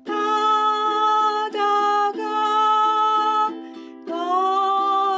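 Ukulele strummed in a down-down-up, down-up waltz pattern under a sung melody of long held notes, with a new sung line starting about four seconds in.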